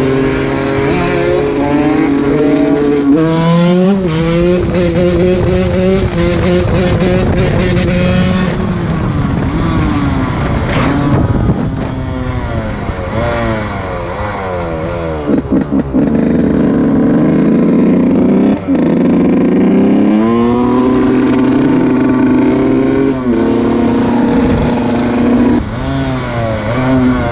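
125 cc two-stroke dirt bike engine revving hard, its pitch climbing and dropping again and again as the rider works the throttle and shifts gears, with a flurry of quick throttle blips about halfway through.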